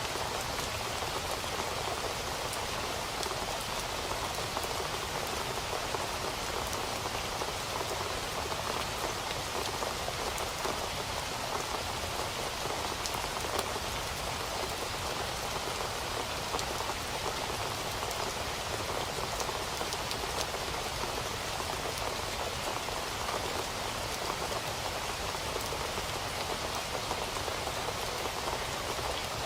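Steady rain falling, a constant hiss flecked with many small ticks of drops striking surfaces.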